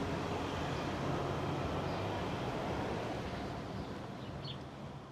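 Steady rumble of a freight train running on the line, with a low engine hum, fading out near the end.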